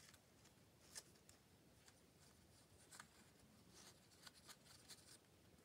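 Near silence with a few faint, scattered light scratches and taps from paper craft work being handled.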